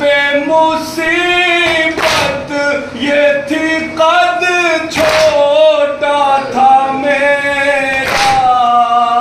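Male voice chanting a nouha, a Shia lament, in long, wavering held notes. Three sharp beats at an even pace, about three seconds apart, keep time under the chant.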